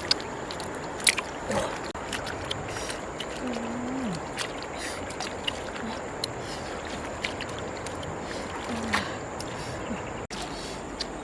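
Water sloshing and trickling, with scattered light clicks and knocks.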